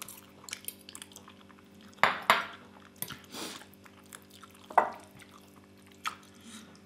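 Metal forks clinking and scraping against a glass bowl and a ceramic bowl as instant noodles are twirled up and slurped, a handful of short sharp sounds over a faint steady hum.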